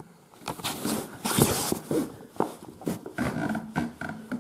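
Rustling, small knocks and faint creaks from a folding camping cot's tubular metal frame flexing under a person's weight, with a louder rustling burst about a second and a half in.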